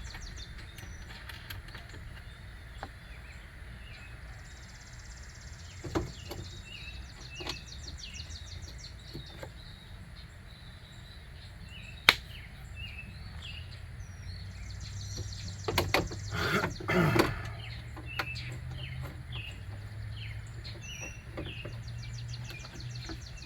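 Birds chirping over steady background noise, with scattered small metal clicks from the window regulator being fitted and its nuts hand-started inside the door. There is one sharp click about halfway through and a short clatter of metal parts about two-thirds of the way in.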